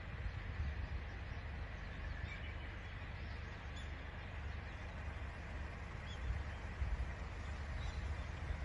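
Outdoor ambience: a steady low rumble under a soft even hiss, with faint short bird chirps a few times.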